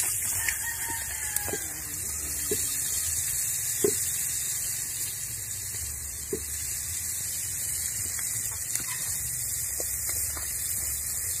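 A rooster crowing in the background over a steady high hiss, with a few short light knocks.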